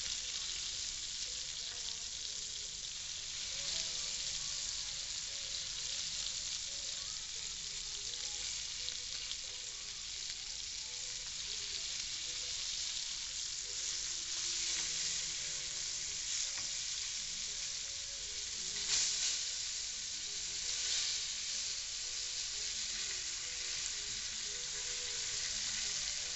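Floured strips of liver sizzling steadily in hot butter and olive oil in a frying pan, with a few brief louder crackles as the pieces are turned over with tongs to cook the second side.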